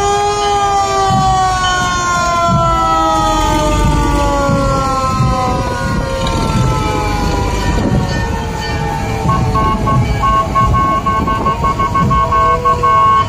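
Emergency-vehicle sirens in a parade, several overlapping wails slowly falling in pitch as they wind down. About nine seconds in, a rapidly pulsing steady tone starts, over a low vehicle rumble.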